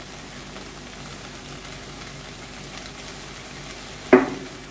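Ponnanganni greens sizzling steadily as they sauté in a stainless steel kadai, their own moisture frying off. One brief, sharp louder sound comes about four seconds in.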